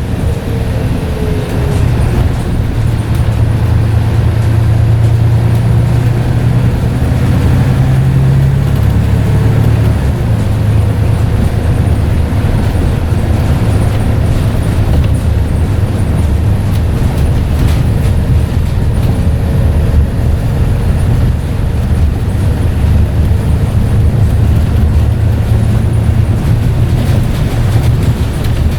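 Scania N94UD double-decker bus's diesel engine running under way with a steady low drone. Its note drops a step about nine seconds in and then holds.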